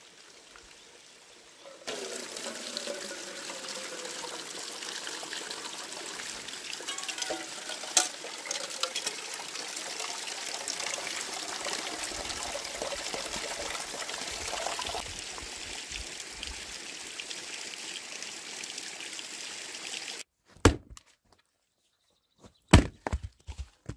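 Spring water pours from a wooden log spout into a metal mess tin as a steady splashing stream. Near the end a few sharp axe strikes land on firewood at a chopping block.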